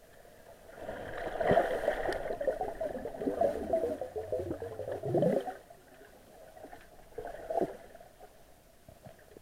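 Underwater gurgling and bubbling of sea water heard through a submerged camera: a loud, churning burst lasting about four seconds, then one short gurgle a couple of seconds later.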